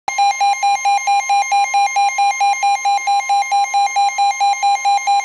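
Midland NOAA weather radio sounding its alert for a severe thunderstorm warning: a loud, rapid beeping alarm, about four beeps a second, over a steady higher tone. It starts abruptly.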